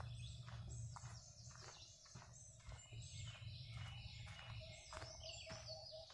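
Footsteps walking at a steady pace, about two steps a second, with wild birds chirping and singing in the background.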